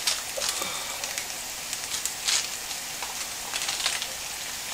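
Sliced garlic and a cayenne chili frying in a little oil in a small pan: a steady sizzle with scattered crackles, a few of them louder.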